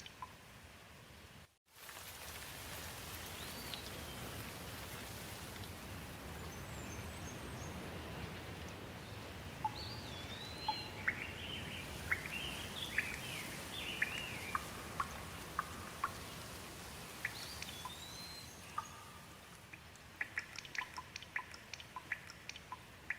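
Steady rain with birds calling now and then over it. Separate water drips are heard at the start and again over the last few seconds, and about a second and a half in the sound cuts out completely for a moment.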